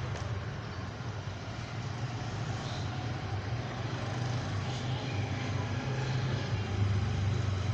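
Steady low rumble with an even background hiss, slightly louder near the end.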